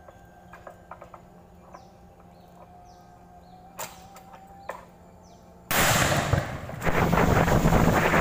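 A quiet stretch with a faint low hum, scattered clicks and two sharper knocks a little under a second apart. About two-thirds of the way in, a small boat's outboard motor running at speed cuts in suddenly and loud, with wind and water spray rushing over it.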